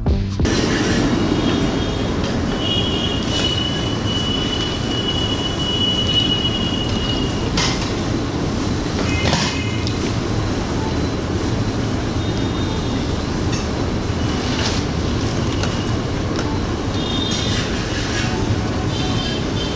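Chekkalu deep-frying in a black iron kadai of hot oil: a steady sizzling bubble, with a metal slotted ladle scraping and clinking against the pan. A thin high metallic squeal runs from about three to six seconds in, and short squeaks and clicks recur several times after it.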